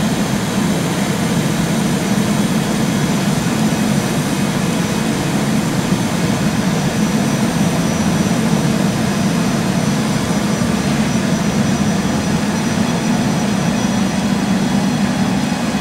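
Trenitalia ETR 425 'Jazz' electric multiple unit moving slowly at the station: a steady low hum from its traction and auxiliary equipment with thin, high, steady whining tones over it.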